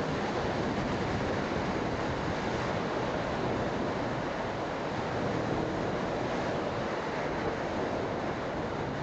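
Steady wind rush buffeting the microphone of a motorcycle rider travelling at road speed.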